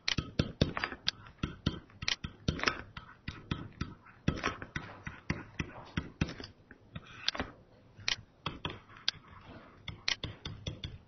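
Stylus tapping and scratching on a tablet computer's screen during handwriting: an irregular series of light clicks, a few a second.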